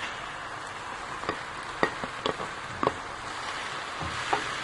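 Chicken and vegetables sizzling in a pan as they are stirred, with a handful of sharp knocks of the spoon against the pan.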